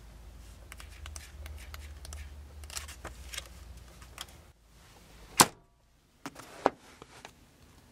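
Paper owner's manual being handled and its pages leafed through, with scattered light rustles and clicks, and one sharp click about five and a half seconds in.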